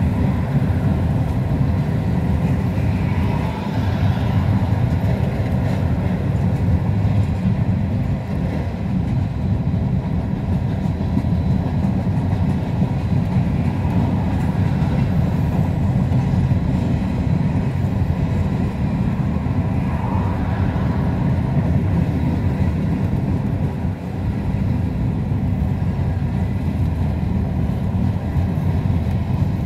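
Freight train of gondola, box and tank cars rolling past at a steady pace: a continuous low rumble of steel wheels on the rails.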